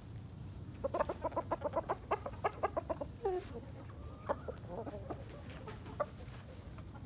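Chickens clucking: a quick run of short clucks from about a second in to about three seconds in, then scattered single clucks.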